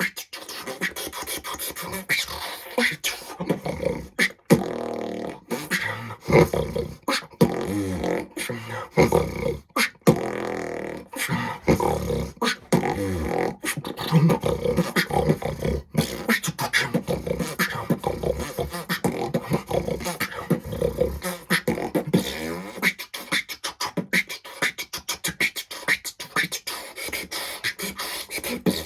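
Solo beatboxing: fast mouth-made drum sounds with a pitched vocal bass line sliding up and down through the middle, turning into denser, quicker percussion near the end.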